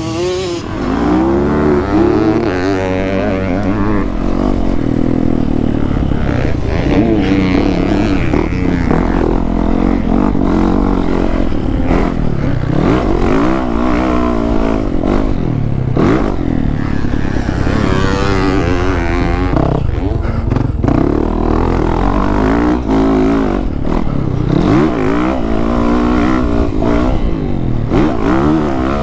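Single-cylinder four-stroke Yamaha YZ450F motocross bike, heard from on board, revving up and down without a break as it is ridden around a dirt track, its pitch rising and falling every second or two.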